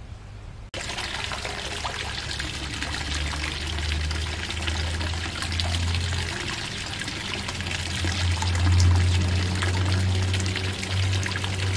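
Water from a small garden water feature trickling and splashing steadily, starting abruptly just under a second in, with a low rumble under it.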